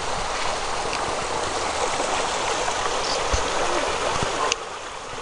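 Steady rushing noise aboard a boat moving along a swamp channel, cutting off suddenly about four and a half seconds in.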